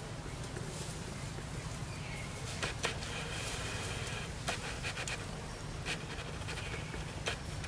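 Outdoor ambience in a tree canopy: a steady low rumble with several sharp clicks spread through it, and a faint high buzz for about a second, starting about three seconds in.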